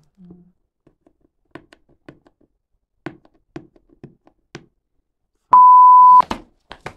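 Soft scattered clicks and taps of fingers picking at the sealed cardboard box and its plastic wrap. About five and a half seconds in, a loud, steady electronic beep sounds for under a second.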